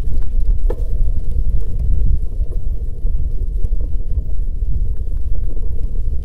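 Wind buffeting the microphone while cycling, a loud steady low rumble, with a few faint clicks from the bicycle.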